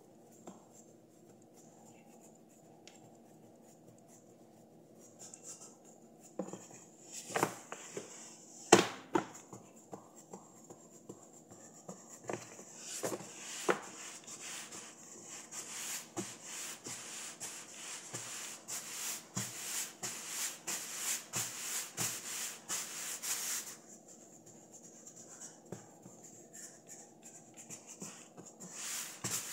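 Hands pressing and spreading pizza dough on a floured countertop: quick, repeated rubbing and patting strokes with a few sharper taps, the first several seconds only a faint hum.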